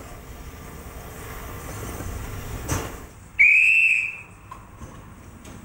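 A railway guard's hand whistle blown once, a single shrill high note of just under a second, giving the signal for the train to depart. A short knock comes just before it, over a low steady background.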